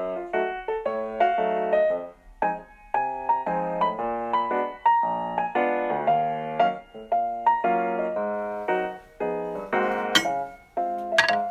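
Background piano music, a run of separate notes. Two short, sharp clicks sound over it near the end.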